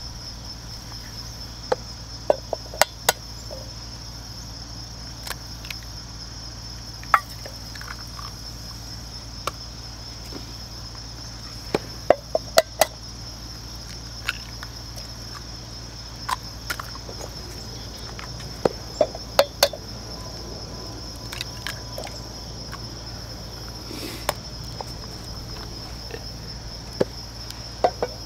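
Crickets chirring steadily and high-pitched, with four short clusters of sharp taps, eggs being cracked against the pan one after another.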